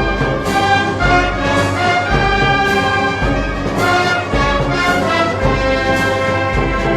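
Brass band playing Moros y Cristianos festival music, with held brass notes over a deep beat about once a second.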